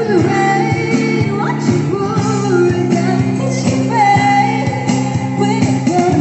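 A song playing: a sung vocal melody over sustained chords, with a steady drum beat.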